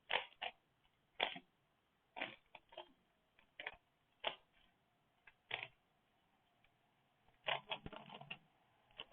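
Rubik's Cube being solved at speed: irregular plastic clicks and clacks as the layers are turned, coming in short groups, with a busier run of turns about seven and a half seconds in.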